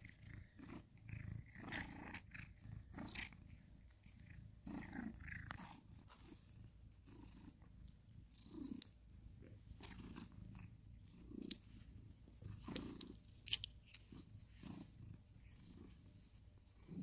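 Ginger cat purring faintly in soft repeated pulses while it mouths and nibbles a person's hand, with a few sharp clicks in the middle.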